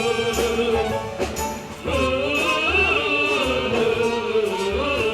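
Musical-theatre song: long held sung notes with vibrato over accompaniment with a steady low beat, breaking off briefly about two seconds in before going on.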